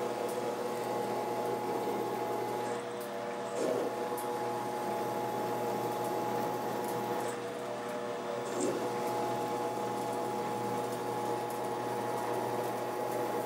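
A benchtop lathe is running while an inexpensive Chinese-made four-flute counterbore end mill cuts a counterbore for an M8 socket-head cap screw. It makes a steady machining whine, with two short louder moments, about a quarter and two thirds of the way through. The cutter seems to cut on only two of its four flutes, which is put down to flutes of uneven height.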